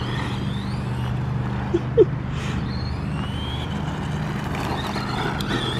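Brushed electric motor and drivetrain of a budget RGT four-wheel-drive RC short course truck whining up in pitch in short bursts of throttle, over a steady low hum.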